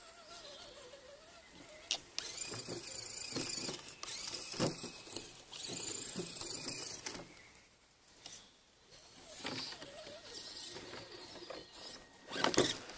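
Radio-controlled Honcho crawler truck's electric motor and drivetrain whining in bursts of a few seconds as it is driven and stopped, climbing through a wet ditch.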